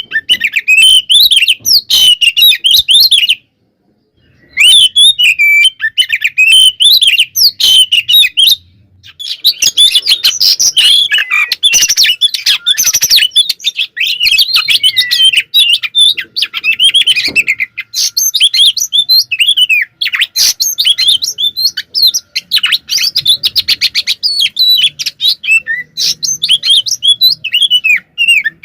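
Oriental magpie-robin (kacer) singing at full tilt in agitated, fighting-mood song: a loud, rapid, unbroken stream of varied whistles and chattering notes. The song stops for about a second around four seconds in and briefly again near nine seconds.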